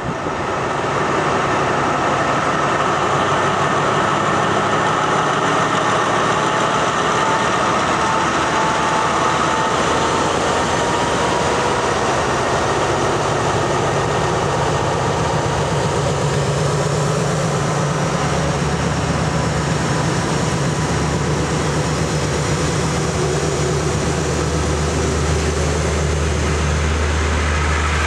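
A State Railway of Thailand diesel locomotive running close by, its engine note deepening and growing stronger about two-thirds of the way through.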